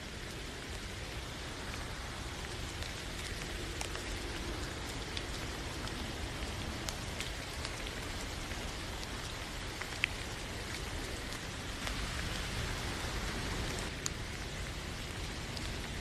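Steady rain falling, with scattered drip ticks and one sharper drop about ten seconds in.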